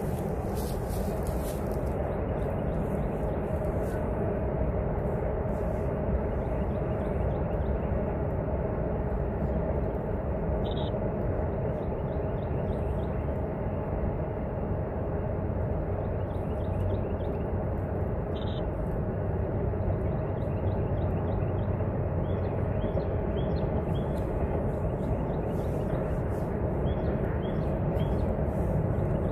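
Distant double-stack intermodal freight train rolling across a high railroad bridge: a steady rumble of wheels and cars.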